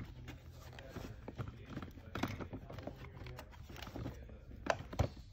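Hands pulling a Joovy Spoon walker seat's fabric strap and plastic buckle into a slot in the walker's plastic tray, with irregular rustling and small plastic knocks. Near the end come two sharp clicks, as the buckle goes into the slot.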